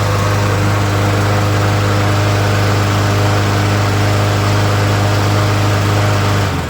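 Briggs & Stratton single-cylinder engine on a walk-behind push mower running steadily on a test run after its repair, then shutting off and winding down near the end.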